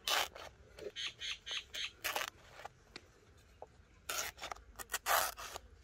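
Knife point slitting wet banana leaf: a series of short, crisp ripping sounds, about seven over a few seconds.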